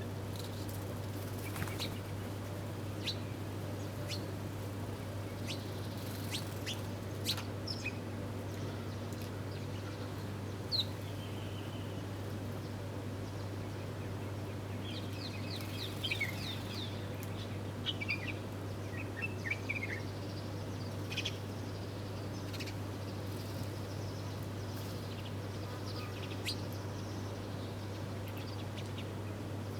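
Wild birds chirping with scattered short, high chirps and quick calls, busiest about halfway through. A steady low hum runs underneath.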